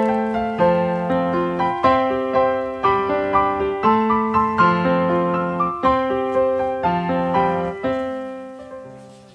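Background piano music: a gentle melody of struck notes, about two a second, fading out near the end.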